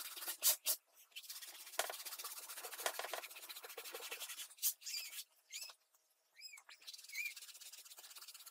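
Dry, scratchy rubbing on paper, broken by a few clicks: dried rubber cement being rubbed off a painted sheet to uncover the batik resist lines. From about five seconds in, the rubbing gives way to a few short, high squeaks.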